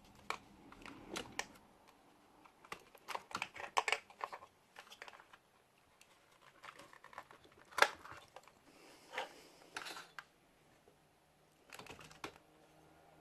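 Small plastic clicks and taps as a plastic landing skid is handled and clipped onto the side of a foldable quadcopter drone, with one sharp click a little past the middle as it locks in.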